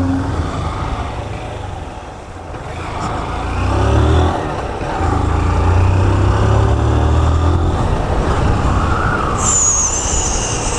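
Motorcycle engine under way at low speed, easing off, then pulling harder about four seconds in, with a short break before it holds steady again. Near the end a high, wavering whistle joins in.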